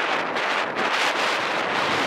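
Strong wind buffeting the microphone, a loud steady rush of wind noise.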